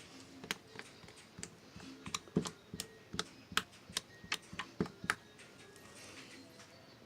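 A quick run of sharp clicks and taps, about three or four a second, bunched in the middle of the stretch and stopping about two seconds before the end.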